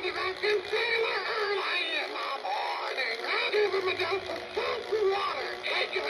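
Animated pirate parrot toy singing a pirate song in a high, electronic voice, with musical backing.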